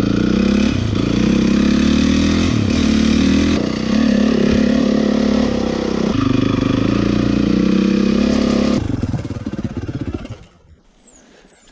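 Honda CRF450 dirt bike's single-cylinder four-stroke engine running with the revs rising and falling, then cutting out about nine seconds in and dying away to quiet. The engine is stalling, which the rider puts down to it not being adjusted.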